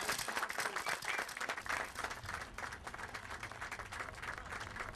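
Crowd applauding: dense clapping that thins out after about two seconds, when a low steady rumble comes in underneath.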